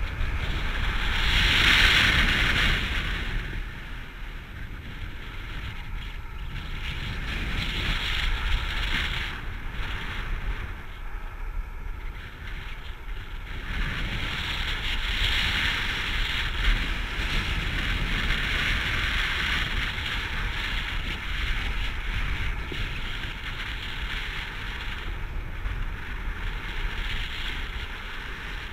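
Wind rushing over the camera's microphone in paraglider flight: a steady low buffeting rumble with hissing gusts of airflow that swell and fade. The gusts are loudest about two seconds in and again in the middle of the stretch.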